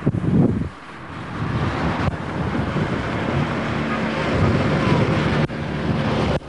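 Motor vehicles driving past close by on a road, engines and tyres running, with wind buffeting the microphone. The sound breaks off sharply a couple of times.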